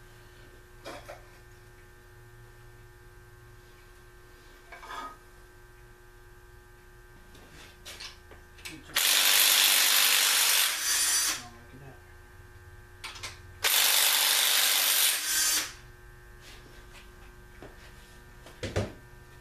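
Cordless power tool running in two bursts of about two seconds each near the middle, spinning fasteners off the connecting rods of a Packard engine on a stand. A few light knocks of parts being handled come before and after, over a steady electrical hum.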